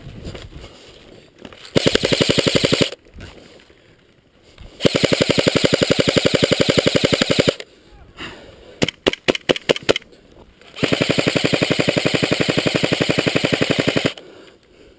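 Airsoft electric gun firing on full auto: a short burst about two seconds in, a longer burst of about three seconds, a quick string of single shots, then another long burst of about three seconds near the end.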